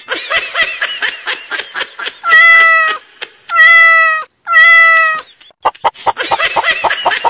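Baby chicks peeping rapidly, broken by three long, loud meows of steady pitch, about two, three and a half and four and a half seconds in; the chick peeping picks up again near the end.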